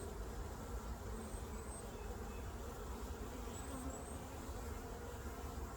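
Honeybees buzzing steadily around an open hive while a brood frame is lifted out for inspection.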